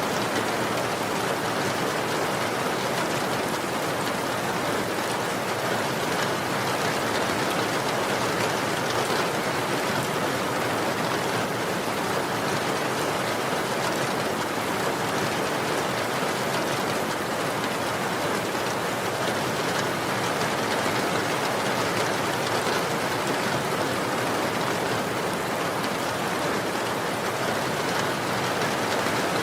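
Steady, dense rainfall pattering on surfaces, an even hiss with no individual drops standing out.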